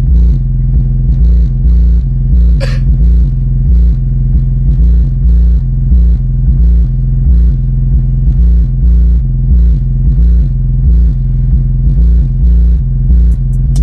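Bass-heavy music played very loud through a car audio system's door speakers and subwoofer, with deep bass notes stepping in time to a steady beat.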